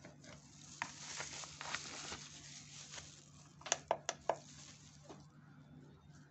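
Containers handled on a tabletop by hand: scraping and rustling, then four sharp clicks in quick succession a little over halfway through as a plastic bottle and a digital kitchen scale are handled.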